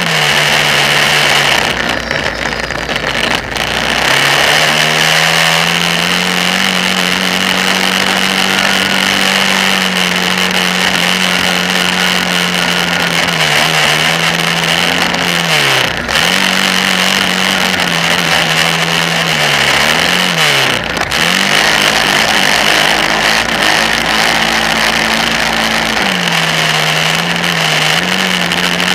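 Kawasaki Brute Force 650 ATV's V-twin engine running hard, heard from on board the quad. Its pitch holds steady, then dips sharply and climbs back a few times as the throttle comes off and on.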